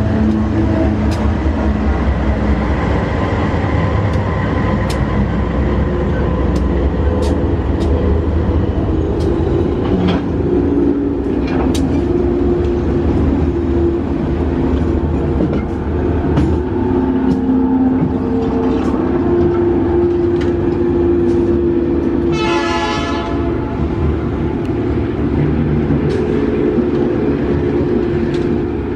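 GE AC44i diesel-electric locomotives running light past at close range: a loud, steady engine drone with scattered clicks of wheels over the rail. A brief, higher-pitched burst comes about three quarters of the way through.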